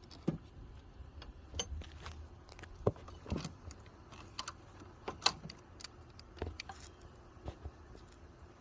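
Hose-removal pliers clicking and tapping as their blades are worked in between a car hose and its fitting: a dozen or so light metal clicks at irregular intervals.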